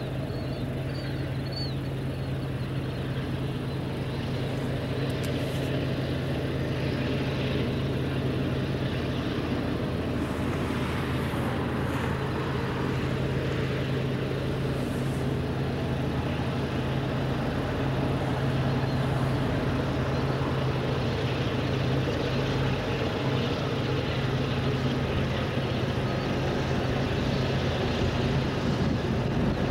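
Distant diesel locomotives of an approaching freight train: a steady low engine drone that grows slowly louder. A bird chirps a few times near the start.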